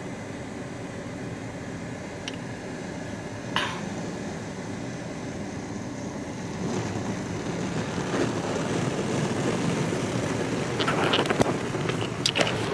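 Automatic tunnel car wash heard from inside the car: a steady rush of water spray and machinery, muffled through the closed car, that slowly grows louder. One short sharp sound comes a few seconds in, and a cluster of brief knocks comes near the end.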